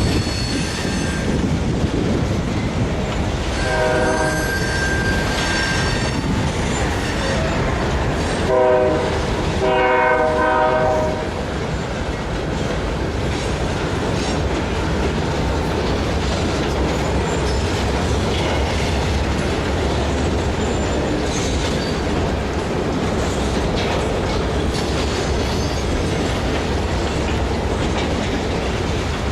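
Continuous rumbling mechanical noise with two long horn blasts a few seconds apart in the first half.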